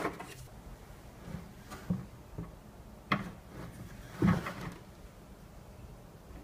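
A handful of separate knocks and clunks of a wrench and hands on a brass fuel fitting in a plastic marine fuel tank as the Teflon-taped fitting is tightened; the loudest is a dull knock a little over four seconds in.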